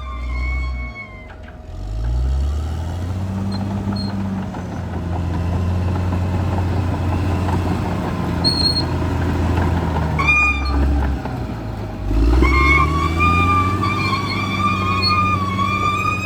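Caterpillar D6R XL bulldozer's diesel engine running, with its pitch dipping and then climbing as it revs up twice, once about two seconds in and again about twelve seconds in. Fiddle music comes back over it near the end.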